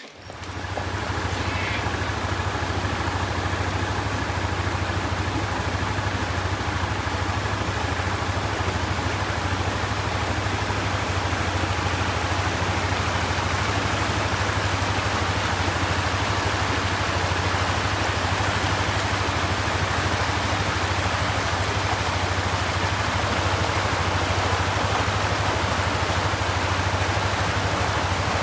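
Steady rushing of water over river rapids with a constant low drone underneath, fading in over the first second.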